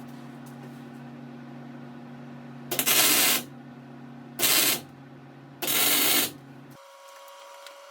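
MIG welder humming steadily with three short bursts of harsh crackle as the torch trigger is pulled; the hum cuts off near the end. The welds are misbehaving because no shielding gas is reaching the torch: the gas regulator has frozen up in the cold.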